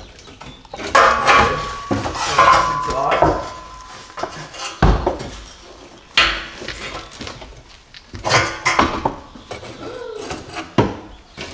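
Jeep Cherokee XJ's steel rear sway bar clanking and scraping against the underbody as it is worked free. There are several separate metal knocks, and a ringing clank about a second in.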